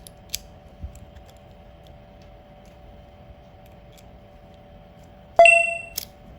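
Small light metallic clicks of a freshly cut Toyota key being handled and tried in its lock cylinder, over a steady faint hum. About five seconds in comes a single sharp metallic ding that rings briefly and fades.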